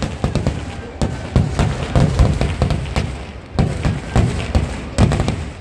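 Kerala temple-festival fireworks (vedikettu) going off in a dense barrage: rapid, overlapping bangs and heavy thuds without a break, with a sharp crack about a second in.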